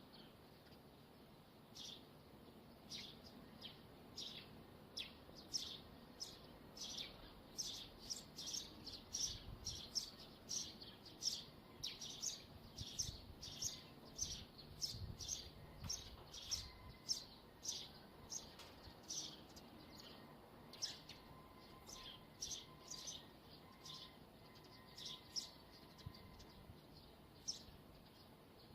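Wire on a TV antenna squeaking in the wind: a faint, irregular run of short, high chirping squeaks, at times several a second, thickest in the middle.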